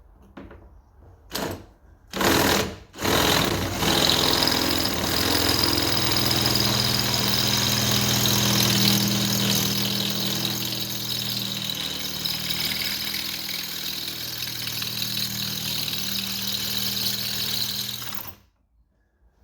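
Power drill boring into the snapped steel stud of a classic Mini door hinge: two short blips of the trigger, then a long steady run of drilling that stops abruptly near the end. The bit is struggling and blunting, making the hole hard work.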